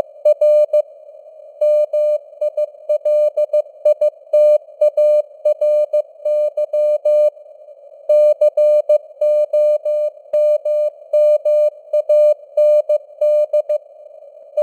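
Morse code at 15 words per minute: a single steady beep keyed on and off in dots and dashes over a narrow band of simulated radio hiss. The keying pauses briefly about a second in and again about halfway through, between words.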